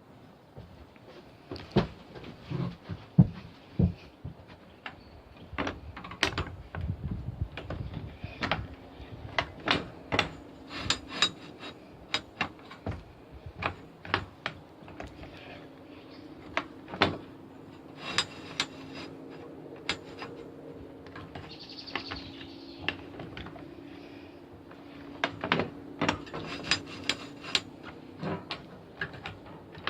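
Repeated metal clicks and clunks of a hand-operated band saw blade setting tool being clamped, levered and moved along a sawmill band blade, tooth set after tooth set, irregularly about once or twice a second. A faint steady hum joins about halfway through and runs until near the end.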